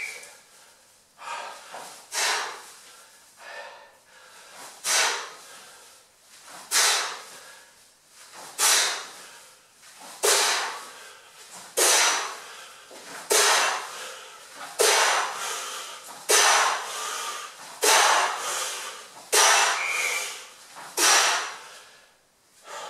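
A man's forceful breathing during a Tabata exercise: a hard, noisy exhale with each back-lunge-and-front-kick repetition, about one every one and a half seconds, growing stronger as the set goes on.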